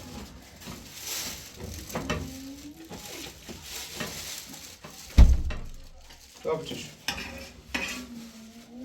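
Food sizzling in a pan while being stirred, with utensils scraping and clinking against cookware. A single heavy thump comes about five seconds in.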